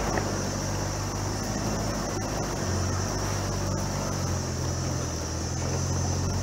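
LDV T60 ute's turbo-diesel engine running at low revs in low-speed off-road driving, heard from inside the cab, its note shifting slightly a couple of times, with faint knocks and a steady high hiss.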